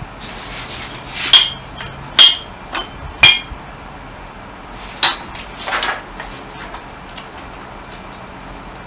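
Hammer tapping on metal: four sharp, ringing blows about a second apart in the first half, then a few lighter knocks.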